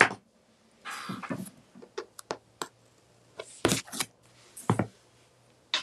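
Hands working a strip of half-inch double-sided tape onto cardstock over a cutting mat. A sharp click at the start, a short papery rustle about a second in, then scattered short taps and rubs as the tape is pressed down along the edge.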